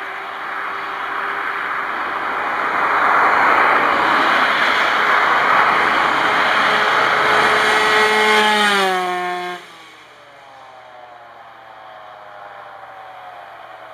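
A road vehicle passes close by. Its road noise builds, and its engine note drops in pitch as it goes past, about eight to nine seconds in. After a sudden drop in level, a distant engine note sinks slowly.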